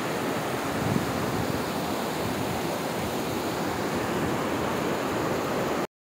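Rushing water of a rocky mountain stream tumbling over boulders: a steady rush that cuts off suddenly near the end.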